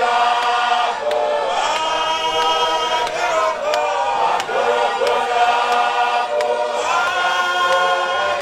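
A group of men's and women's voices singing a church hymn together in harmony, with the notes held and gliding. A sharp tick keeps a regular beat about twice a second.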